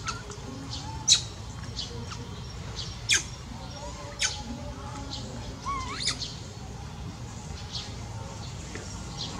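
Short, sharp, high-pitched animal chirps and squeaks, four loud ones a second or two apart. One near the middle sweeps upward in pitch. Fainter chirps come between them, over a steady low outdoor rumble.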